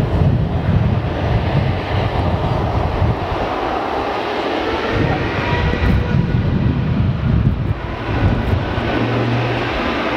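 Airbus A380's four jet engines running at low taxi power as the airliner rolls and turns on the runway: a steady loud rumble that swells and eases, with a faint high whine on top.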